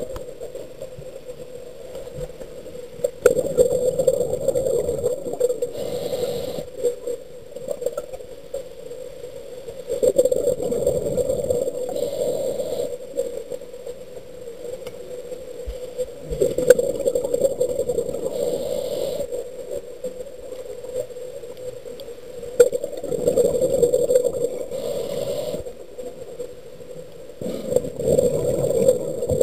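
Muffled underwater noise heard through a camera's underwater housing, swelling and fading in a slow rhythm about every six seconds, five times, in step with a diver breathing on a closed-circuit rebreather.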